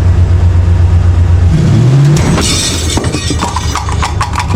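Ford F-150 pickup engine idling, then revving up with a rising pitch about a second and a half in, followed by a burst of hissing and a quick run of sharp cracks.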